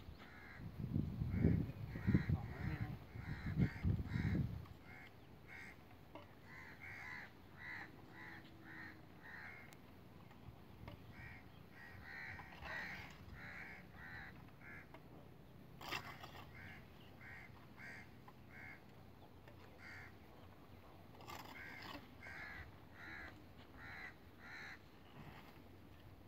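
Crows cawing in long runs of short, rapidly repeated calls, with a few pauses. Low rumbling thuds in the first few seconds.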